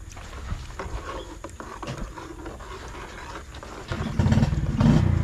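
A metal ladle stirring and tapping softly in a large aluminium pot of broth. About four seconds in, a much louder small engine starts running with a low, steady, pulsing drone.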